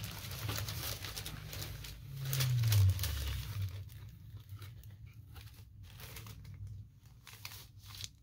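Paper record sleeve rustling and crinkling as a vinyl LP is handled and slid into its inner sleeve. A loud low hum falls in pitch about two to three seconds in.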